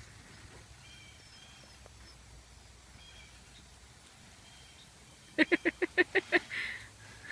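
A small dog yapping: a quick run of about seven high barks in a row, a little over five seconds in.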